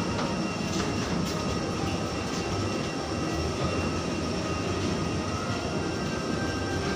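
Steady rumbling din of airport machinery heard from inside a glass boarding bridge, with faint steady high whines over it such as aircraft engines or an auxiliary power unit give.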